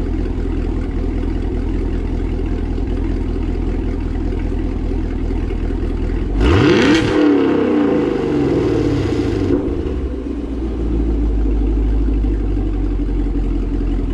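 2018 Camaro SS's 6.2-litre LT1 V8 idling through aftermarket headers and exhaust. About six and a half seconds in it is blipped once: the revs rise sharply and fall back to a steady idle.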